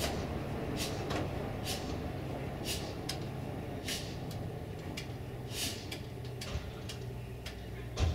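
BR232 'Ludmilla' diesel locomotive's V16 diesel engine idling steadily, with short sharp hisses every second or so and a single thump at the very end.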